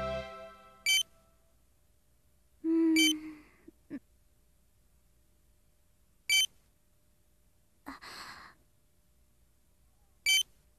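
A checkout barcode scanner beeps four times as items are scanned, each a short high electronic beep, with the beeps spaced unevenly. Faint soft handling noises come between the beeps.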